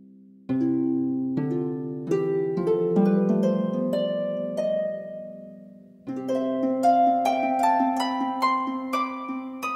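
Background music of plucked-string notes playing a rising melody over held bass notes, entering about half a second in, then a new phrase about six seconds in.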